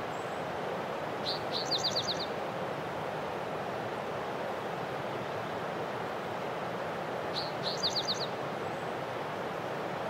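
Male northern cardinal singing two short phrases about six seconds apart, each a lead note followed by about five quick down-slurred whistles, over a steady rushing background hiss.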